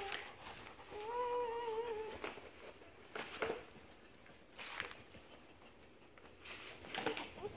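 Newborn puppy of a German shepherd–boxer mix crying: a short wavering whine at the start and a longer one of about a second, then a few short soft licking and rustling sounds as the mother dog cleans it on the bedding.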